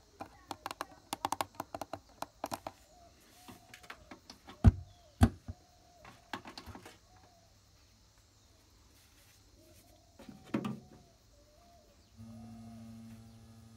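Scattered clicks and knocks of equipment being handled, with two sharper thumps about five seconds in and faint bird chirps in between. Near the end, music starts playing through the newly fitted Bluetooth-fed speaker system.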